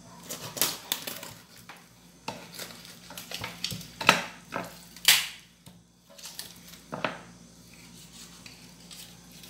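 Kitchen knife cutting up a raw whole chicken on a wooden board: a series of sharp cracks and crunches as the blade goes through the ribs and joints, the two loudest about four and five seconds in, quieter toward the end.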